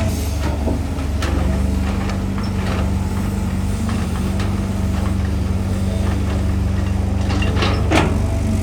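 Cat 320GC excavator's diesel engine running steadily, with a held tone through the middle and sharp knocks about a second in and near the end.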